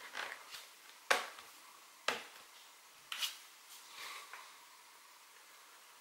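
Plastic clips of a Lenovo ThinkPad T495s screen bezel clicking into place as fingers press along its side: three sharp clicks about a second apart, with fainter clicks and rubbing of fingers on plastic in between.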